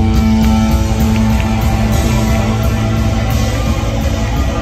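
Live rock band playing: electric guitars, keyboard, bass and drums, with a chord held over a busy low end.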